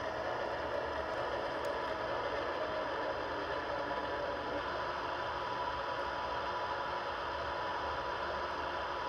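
MTH O-gauge R33 subway model train easing to a stop and standing, giving off a steady hum and rumble with a faint steady whine.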